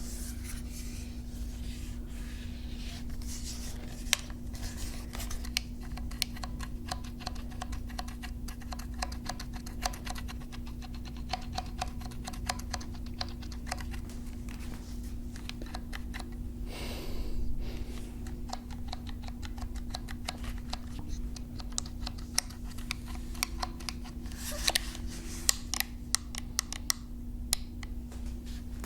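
Ruger 10/22 rifle being handled: a long run of small, irregular clicks and taps, busier and sharper near the end, with a brief rustle about seventeen seconds in.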